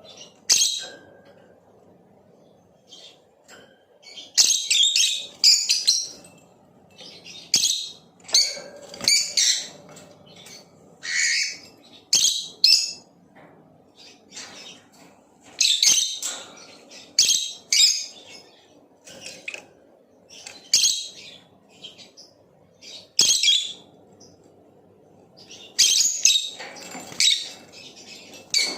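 Lovebird chirping: high, sharp chirps in clusters of a second or two, with short pauses between clusters.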